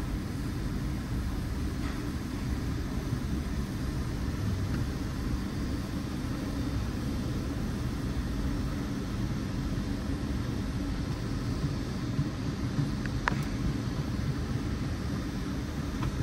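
Steady low rumble of a car heard from inside the cabin, with one faint sharp click about thirteen seconds in.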